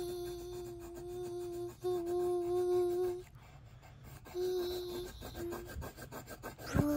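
A child humming a tune in long held notes, with a short break just before two seconds in and a pause of about a second after three seconds, then a few short notes near the end. Soft pencil strokes scratch on paper underneath.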